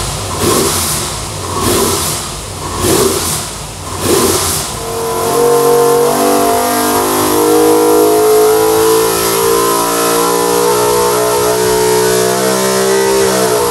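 410 sprintcar V8 race engine running on an engine dyno. It gives four or five quick throttle blips about a second apart, then a sustained loud pull held at a nearly steady high pitch for about eight seconds. The revs fall away near the end.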